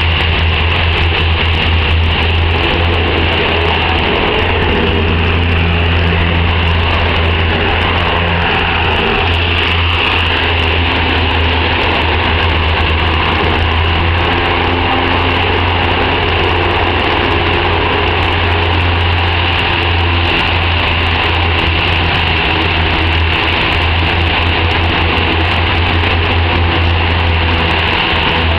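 U.S. Navy LCAC air-cushion landing craft (LCAC-71) running at close range: its gas turbines, lift fans and ducted propellers make a loud, steady noise with a deep constant hum underneath, as it comes ashore on its air cushion.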